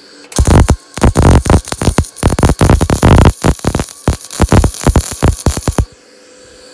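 Electronic background music with a heavy, dense beat.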